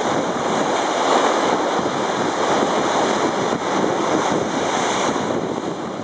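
Rough sea surf churning and breaking against a concrete slipway: a loud, steady rushing, with wind on the microphone.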